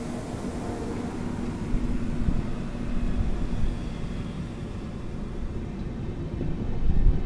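Passenger train coaches passing close by at speed: a steady rumble of wheels on the rails, getting louder with heavy low thumps near the end as a power car goes past.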